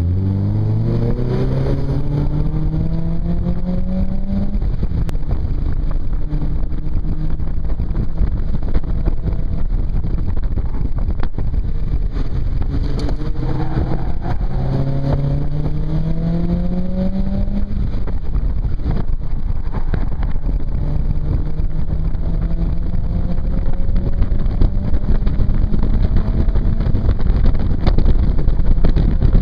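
Mazda MX-5 Mk1's naturally aspirated 1.8-litre four-cylinder engine heard from inside the open cockpit, pulling hard under full throttle. The revs climb and drop back at the gear changes, then hold higher and steadier, getting louder near the end.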